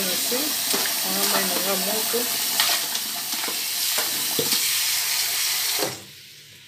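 Kitchen tap running hard into a pot of oxtail pieces in a sink as the meat is rinsed, a steady splashing rush that stops about six seconds in when the tap is turned off.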